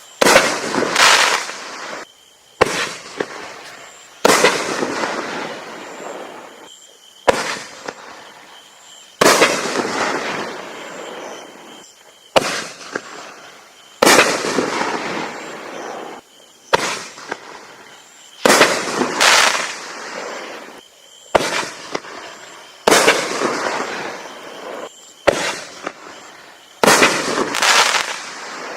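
Raccoon Fireworks 'Camo Blast' consumer firework going off in a long string of shots, about fifteen in all, one every two seconds or so. Each is a sharp bang followed by a hissing, crackling tail that fades over a second or two.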